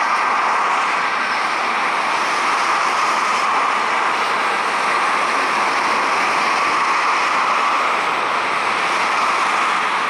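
Steady rushing roar of a Boeing 737-800's CFM56 turbofan engines as the airliner comes in on final approach to land.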